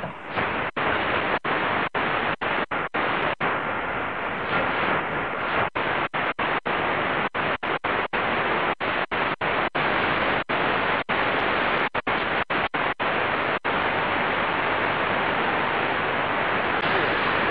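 Qodosen DX-286 shortwave receiver giving out steady static hiss as it is tuned across the 19-metre band, cutting out for an instant at each of many tuning steps. The steps stop about three-quarters of the way through and the hiss runs on unbroken; only band noise, no station coming through.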